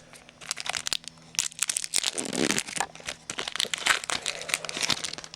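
A trading-card pack wrapper being crinkled and torn open by hand: a dense run of crackles with a few tearing sounds.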